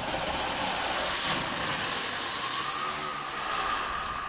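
Liquid nitrogen boiling off inside a plastic bottle plunged into room-temperature water. The gas jets out of the bottle's angled vents with a loud rushing hiss as the bottle spins. The hiss swells over the first couple of seconds and fades in the last second or so.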